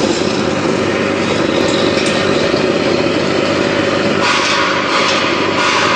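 Peanut butter grinding machine running loudly and steadily while grinding peanuts fed through its stainless steel hopper. About four seconds in, a harsher, hissier grinding sound grows over the running noise.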